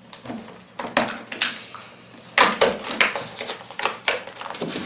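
Clear plastic blister packaging crinkling and crackling in irregular bursts as it is prised and peeled off its cardboard backing by hand.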